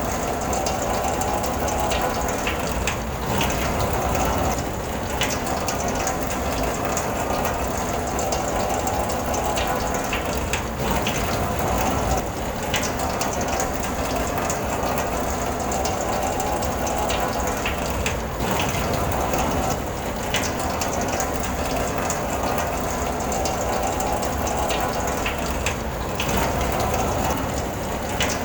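Rain drumming on a car's roof and glass, heard from inside the car: a steady, dense patter of drops, with a few heavier taps now and then.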